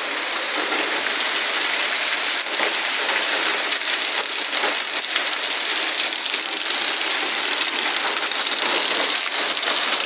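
Heavy rain pouring down steadily, countless drops pelting roofs and hard surfaces close by.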